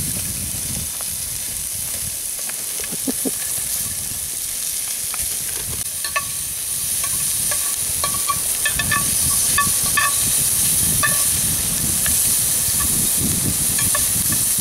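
Sliced peppers sizzling in a frying pan over a campfire, stirred with a spatula. A run of short sharp clicks falls between about six and eleven seconds in.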